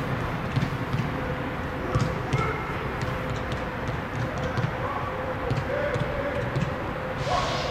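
Footballs being passed, heard as faint, irregular kicks over a steady low rumble of wind on the microphone, with a few brief distant calls.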